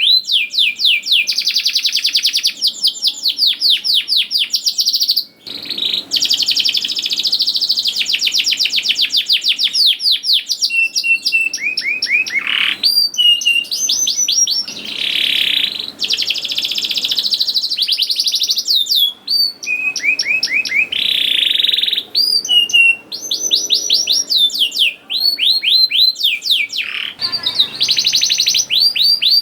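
Domestic canary in full song: long, loud trills made of rapid runs of repeated falling notes, switching to a new phrase every second or two, with brief pauses.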